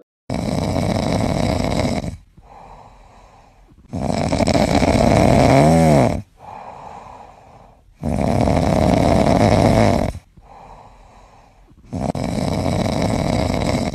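Black-and-white cat asleep on its back, snoring: four long snores of about two seconds each, roughly four seconds apart, with softer breaths in between.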